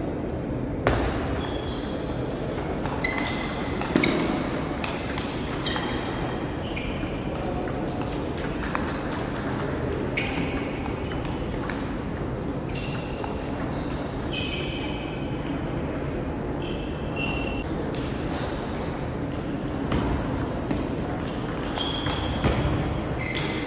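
Table tennis rallies: the ball clicks sharply off the bats and the table in quick exchanges, with short high squeaks scattered through them, over the hum of a large sports hall.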